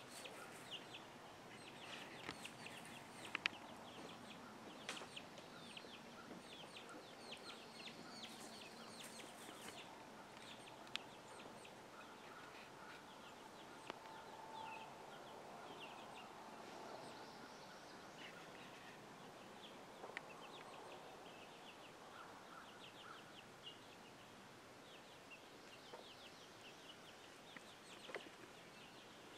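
Free-range chickens heard faintly: hens clucking and young chicks peeping in many short high chirps, with a few sharp clicks.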